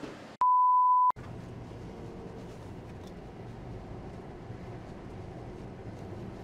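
A single pure censor bleep lasting under a second, then the steady road noise of a vehicle driving, heard from inside it.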